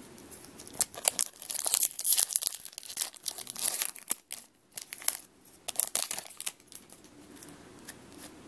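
Foil Pokémon trading-card booster pack wrapper crinkling and tearing as it is ripped open, a dense run of sharp crackles from about a second in until near the end.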